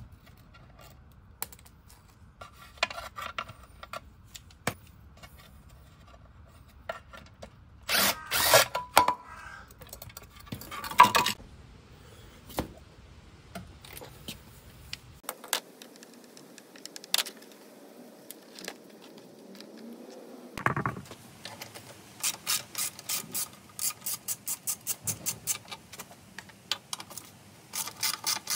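Hand tools working on motorcycle bolts: scattered clicks and a few short, loud bursts of tool noise, then, from about three-quarters of the way in, a socket ratchet clicking rapidly in short repeated strokes.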